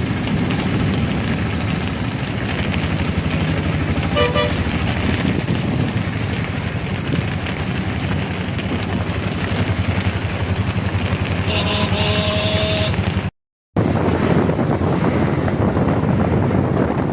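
Road traffic running steadily, with a short vehicle horn honk about four seconds in and a longer honk about twelve seconds in. The sound cuts out for a split second shortly after the second honk.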